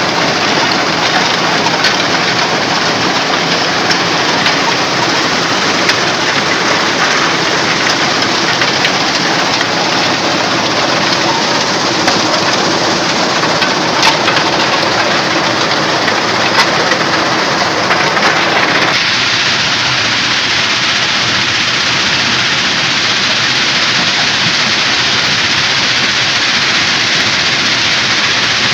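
Stone crusher plant running: a loud, steady mechanical din of machinery and crushing rock with a faint engine hum underneath. About two-thirds of the way through, the sound changes abruptly to a thinner, hiss-like noise.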